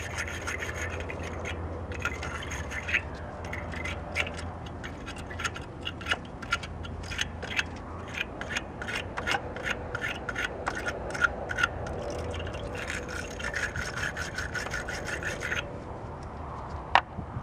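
Wire-brush battery terminal cleaner being twisted and scrubbed inside a corroded battery cable clamp: repeated short scraping strokes, a few a second, that stop about two seconds before the end. A sharp click near the end.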